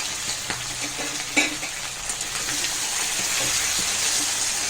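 Diced potatoes and green peas sizzling as they fry in hot oil in a kadai, with a spatula stirring and knocking against the pan. One louder knock comes about a second and a half in.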